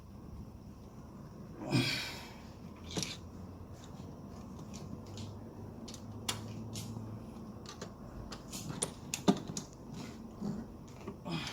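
Scattered metallic clicks and knocks of hand tools on engine parts, with a brief scraping rustle about two seconds in, as a fitting on the ignition coils is tightened.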